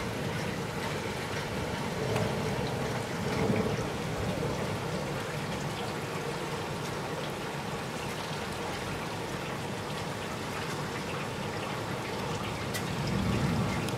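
Steady rain and dripping water after a thunderstorm, with soft low rumbles of distant thunder about two and three and a half seconds in, and again near the end.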